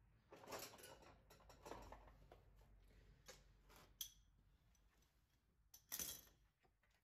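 Faint, scattered clicks and light clatter of tools being handled, with a sharp click about four seconds in and a louder short knock about six seconds in.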